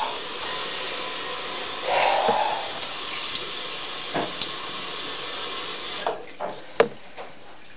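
Bathroom sink tap running into the basin, with a few splashes as water is scooped over the head. The flow stops about six seconds in, leaving a few drips and clicks.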